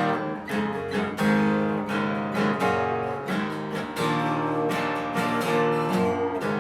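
Copy Taylor 314ce steel-string acoustic guitar, tuned down a half step, strummed in a fast run of chords that ring on between strokes. The bright, jangly edge on the strums is the normal character of a steel-string acoustic, not fret buzz.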